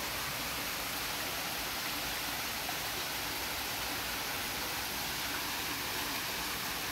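Small waterfall pouring steadily into a pond: a constant, even rush of splashing water.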